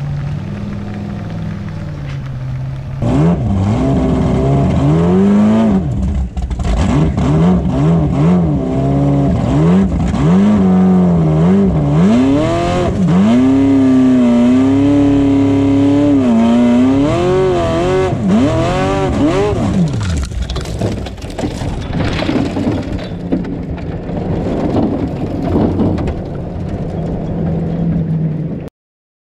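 Formula Offroad competition buggy's engine, heard from on board, running low and then revved hard from about three seconds in as the car climbs a steep dirt hill: the pitch rises and falls with the throttle, is held high for a few seconds, then drops away, with scattered knocks over it. The sound cuts off abruptly near the end.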